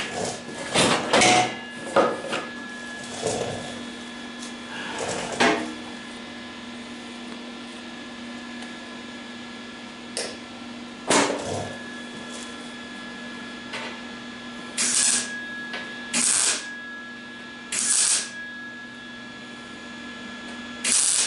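MIG welder laying short tack welds along a crack in the thin sheet-steel front valance of a 1974 MGB, turned down to a low setting for the thin metal: several short bursts of arc crackle, each about half a second, mostly in the second half, over a steady hum. Knocks and clatter come in the first few seconds.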